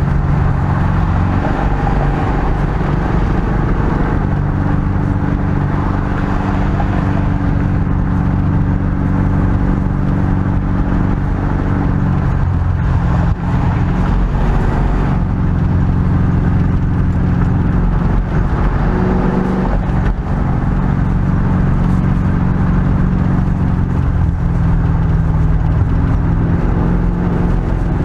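Car engine and tyre noise while cruising on a freeway: a steady, loud low drone whose engine note shifts in pitch a few times as speed and load change.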